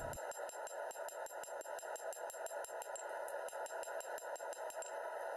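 A hand hammer strikes a hot 1070 steel sword blade on an anvil in a rapid, even run of sharp blows, several a second, drawing out the edge bevels.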